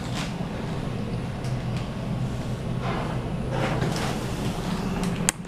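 Glass elevator running down through a cruise-ship atrium: a steady low hum, with a sharp click near the end.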